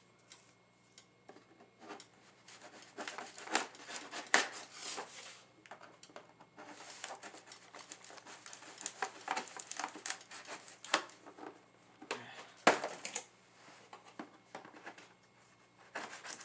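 A keyboard box being opened and its packaging handled by hand: irregular rustling, crinkling and tearing with scattered sharp clicks and knocks. The loudest knocks come about four seconds in and again about twelve and a half seconds in.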